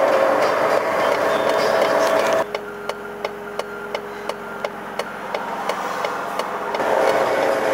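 Truck-mounted road sweeper running with a steady whine, heard from close behind. About two and a half seconds in it cuts to a quieter hum with steady mechanical ticking about three times a second, and loud vehicle noise returns near the end.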